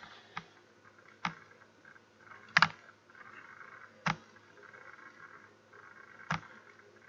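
Computer mouse clicking: five sharp clicks at uneven intervals, the loudest, a quick double click, about two and a half seconds in.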